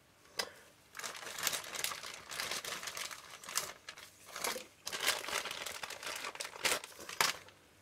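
Paper crinkling and rustling in repeated bursts for several seconds, with a sharp crackle about half a second in and two more near the end, typical of lens-cleaning tissue being crumpled and worked during cleaning of a lens element.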